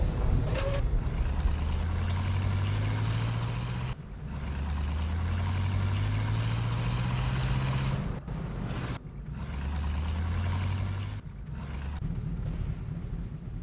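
An engine running and revving up: its pitch climbs steadily for a few seconds, drops, and climbs again, three times over, with a few abrupt breaks.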